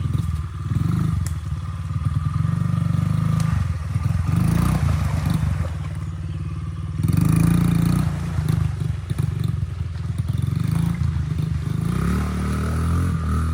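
Honda CRF50's small single-cylinder four-stroke engine revving up and down in repeated bursts while the bike is stuck in mud and being worked free. The loudest rev comes about seven seconds in.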